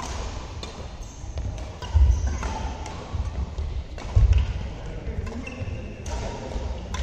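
Badminton doubles rally: rackets striking the shuttlecock with short sharp clicks, among heavy thuds of players' feet landing and pushing off on the court.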